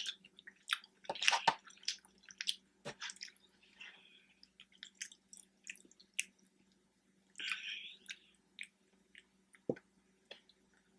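Wet chewing and mouth sounds from eating cheesy rotini pasta in vodka sauce, close to the microphone: irregular soft smacks and squishes, with one longer wet sound a little past halfway.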